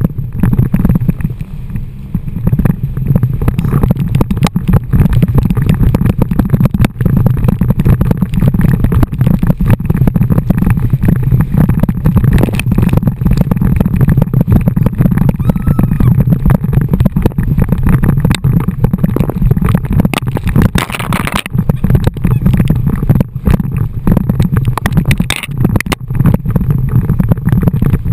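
Heavy wind buffeting and rushing water on the microphone of an action camera riding low on a towed inflatable tube, a dense low rumble broken by constant slaps and crackles of water. A brief hissing burst of spray comes about three-quarters of the way through.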